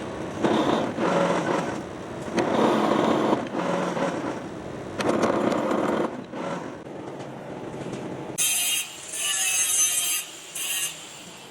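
A workshop power tool working material in repeated surges of about a second each. Near the end it gives sharper, higher-pitched bursts.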